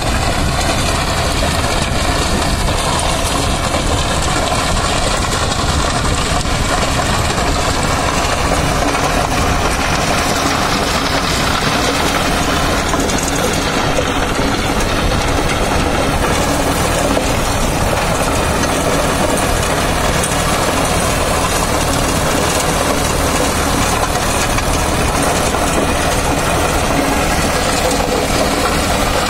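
Sonalika Sikandar DI 745 tractor's diesel engine running steadily under load, driving a Wegman rotavator whose rotating blades churn through the dry soil.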